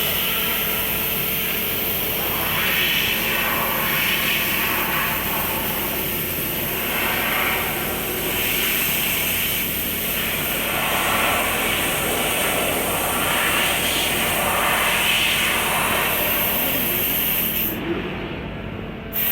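Senfeng CNC laser cutter cutting 3 mm sheet steel: a steady hiss of machine and gas noise, swelling every second or two. Near the end the high hiss cuts out for about a second, then comes back.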